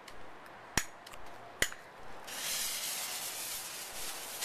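A long-neck lighter clicking twice, then, about halfway through, a slow visco fuse catching and burning with a steady hiss.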